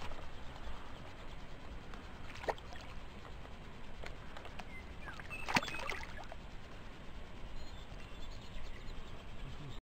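A hooked trout splashing at the pond surface on a fly line, with two sharper splashes about two and a half and five and a half seconds in, over steady low background noise.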